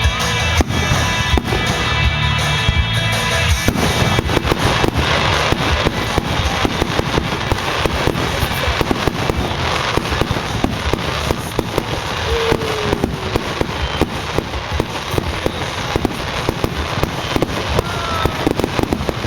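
Fireworks display: a dense, rapid run of aerial shell bursts and crackling reports, many per second. Music plays under the first few seconds and stops about four seconds in.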